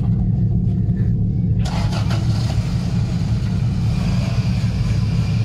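Off-road vehicle's engine running low and steady while crawling over rocks. A broad rushing noise joins about a second and a half in.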